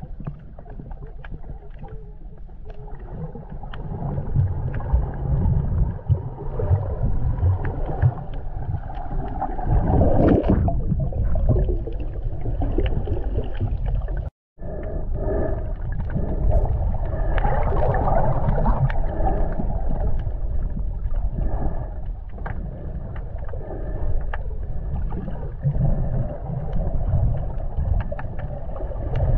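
Muffled underwater noise picked up by a snorkeller's camera held below the surface: a low rumble and water moving against the housing, with scattered small clicks. It cuts out for an instant about halfway.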